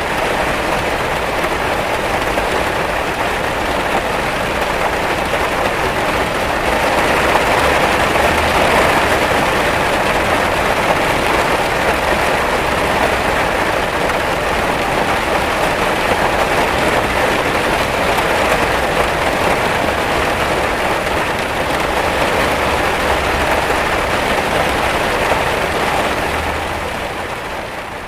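Heavy rain beating against a window pane, a steady dense hiss that fades out near the end.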